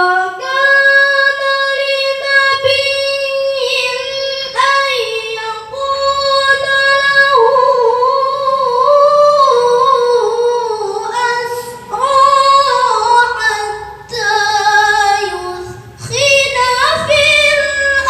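A child's high voice reciting the Quran in melodic tilawah style, with long ornamented held notes sung in several phrases and brief pauses for breath between them.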